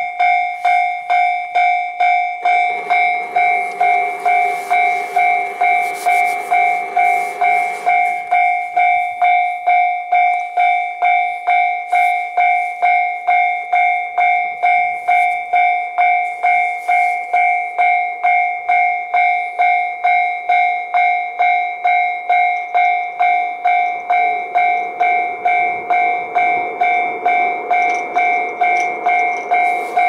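Japanese railway level-crossing warning bell ringing: one repeating electronic ding, about two strikes a second, sounding while the crossing is closed for an approaching train. A lower rumble joins it from about two to eight seconds in and again near the end.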